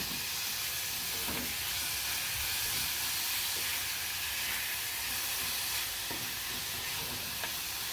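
Chopped garlic, onion and spring onion sizzling steadily in hot oil in a saucepan, with a wooden spoon stirring through them and giving a few light scrapes.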